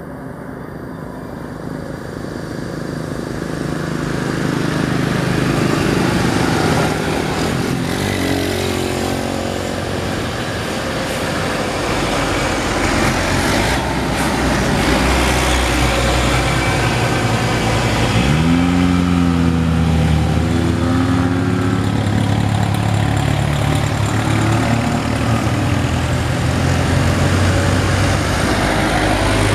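Heavy diesel truck engine labouring as the loaded Mitsubishi Fuso climbs a steep grade, growing louder as it approaches, mixed with the engines of passing motorcycles and cars. About 18 seconds in, an engine's pitch sweeps sharply up and holds before dropping back, as it revs.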